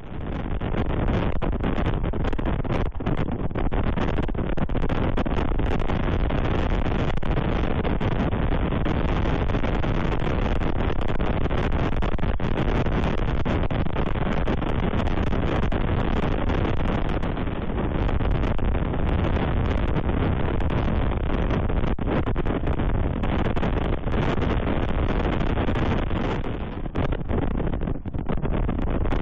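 Strong wind blowing across an outdoor camera microphone: a loud, steady rush of wind noise, heaviest in the low end.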